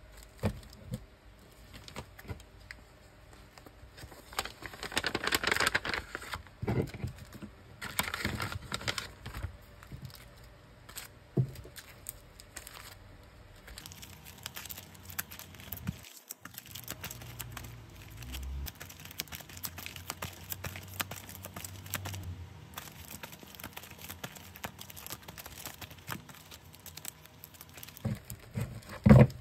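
Stacks of sticker sheets in clear plastic sleeves being handled, fanned and shuffled: the sleeves crinkle and rustle, with light taps and louder stretches about 5 and 8 seconds in. There is a sharp knock just before the end.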